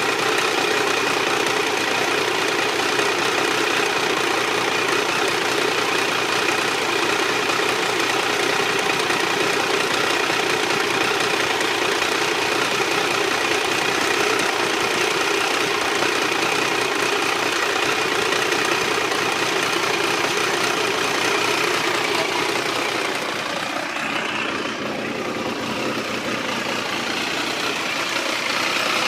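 Triumph 955i inline-three motorcycle engine idling steadily with a strange mechanical noise, which the owner cannot place between the clutch and the valves; he says it is worse when the engine is hot and louder on the left side. The sound grows briefly quieter for a few seconds near the end.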